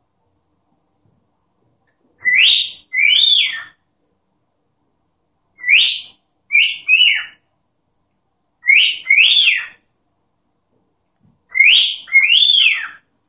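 Cockatiel whistling four short two-note phrases a few seconds apart, each a rising note followed by a falling one.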